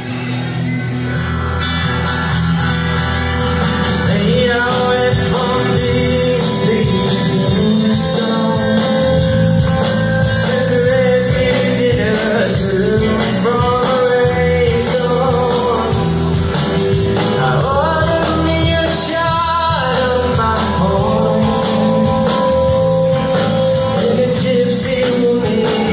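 Live rock band playing an original song through a stage PA: a man sings over acoustic and electric guitars and drums.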